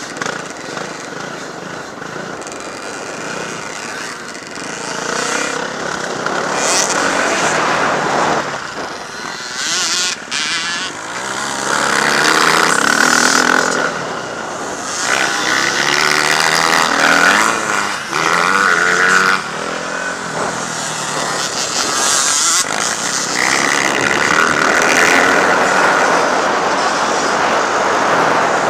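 Motocross bike engines revving hard on a dirt track, the pitch climbing and dropping again and again with throttle and gear changes, louder from about halfway through.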